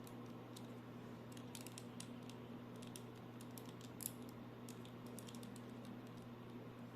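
Scattered light clicks and taps of a plastic action figure and its packaging being handled, with one sharper click about four seconds in, over a steady low electrical hum.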